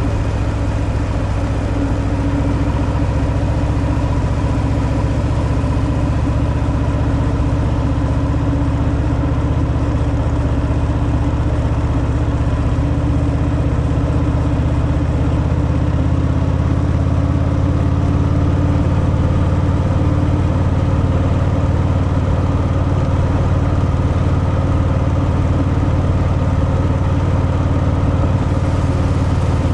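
Harley-Davidson Fat Boy's air-cooled V-twin engine through its stock exhaust, running steadily at an even pace on the road, with no clear rise or fall in pitch.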